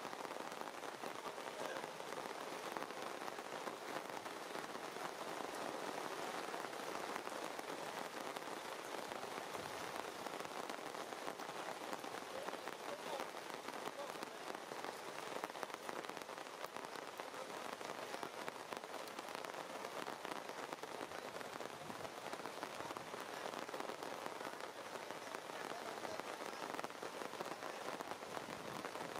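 Steady rain falling: an even hiss of many small drop hits that holds at the same level throughout.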